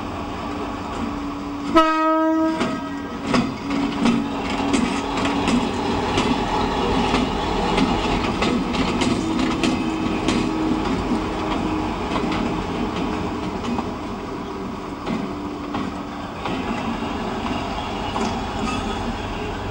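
Class 60 diesel locomotive moving through a rail yard: a single short horn note about two seconds in, then the steady hum of its diesel engine with wheels clicking over rail joints.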